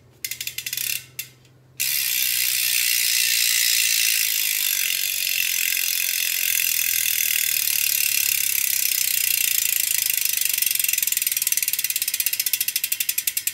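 The rear freehub of an Elite Stratos S3 carbon road wheel ratchets as the wheel spins. A few short bursts of pawl clicks come first, then a continuous buzz from about two seconds in that slows into separate clicks near the end as the wheel coasts down. This is the hub's loud "cricket" freewheel sound, which regreasing the hub would quieten.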